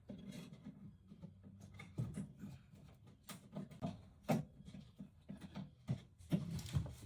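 Irregular small clicks, taps and knocks as a camper wall panel is worked and pried loose from its adhesive, with a few sharper pops and knocks among them.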